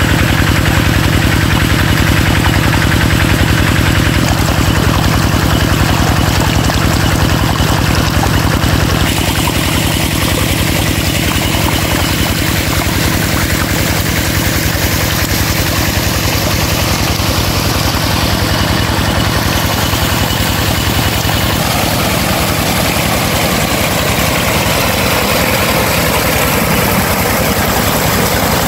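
Engine-driven water pump running steadily at a constant speed, with water gushing out of its flat discharge hose and splashing onto the ground.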